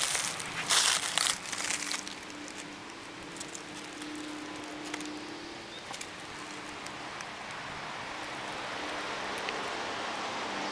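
Dry fallen leaves crunching and crinkling loudly for about the first two seconds, then a steady rushing background that swells slightly near the end.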